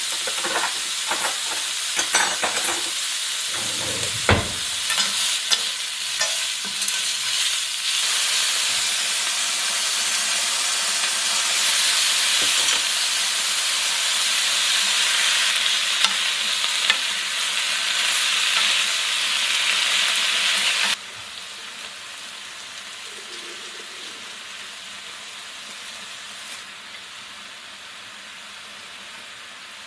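Leftover food sizzling in a hot frying pan, with a few utensil clicks and scrapes in the first seconds. About 21 seconds in, the sizzle drops suddenly to a much quieter hiss.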